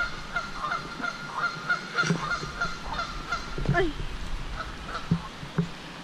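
Geese honking: a quick run of short repeated honks for the first few seconds, thinning out to scattered calls after that.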